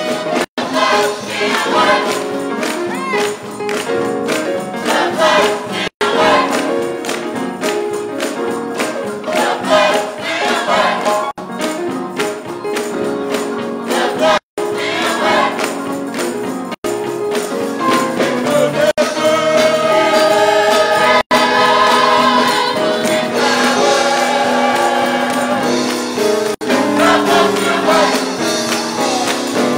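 Gospel choir singing with instrumental accompaniment. The sound cuts out completely for an instant about six times.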